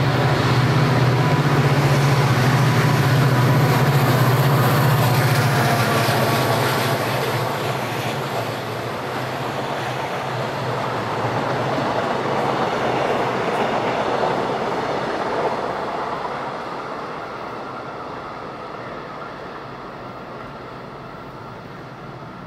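Korail diesel-electric locomotive hauling a Saemaeul-ho passenger train passes close by at speed. The loud, low drone of its diesel engine is heard for the first several seconds, then the rumble of the coaches' wheels on the rails, which fades from about halfway through as the train moves away.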